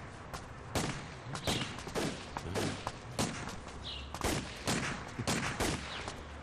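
Distant scattered gunfire: a dozen or so shots at irregular spacing, roughly two a second, each with an echoing tail.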